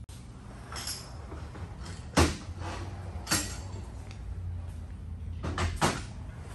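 A few sharp knocks or clunks, the loudest about two seconds in and a close pair near the end, over a low steady hum.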